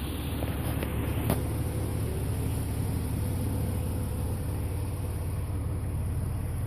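Jeep Wrangler TJ running at low RPM: a steady low drone with a buzz, the fault the owner is trying to trace. A single sharp click about a second in.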